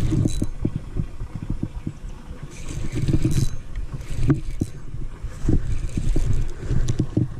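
Wind buffeting the microphone as a low, uneven rumble, while a spinning reel is cranked to bring in a hooked bass, with light rod-and-reel handling noise.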